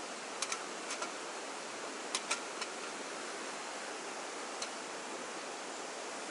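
Dry twigs and pine cones clicking and knocking against a small stainless-steel folding wood stove as they are set into it: a few sharp ticks, mostly in the first half, over a steady hiss.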